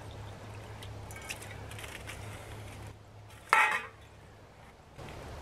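Water pouring and trickling while camp dishes are washed, with faint light clinks and one brief louder sound about three and a half seconds in.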